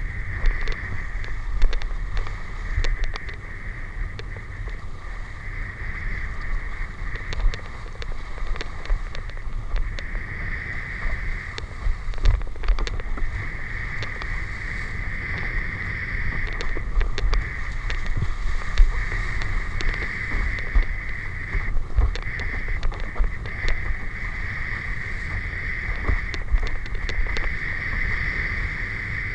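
A steady motor hum with a high whine over a low rumble, with wind buffeting the microphone and scattered clicks.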